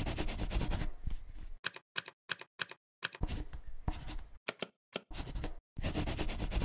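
Typing on a computer keyboard: quick runs of keystrokes broken by short pauses, with a few single key taps about a third of a second apart near two seconds in.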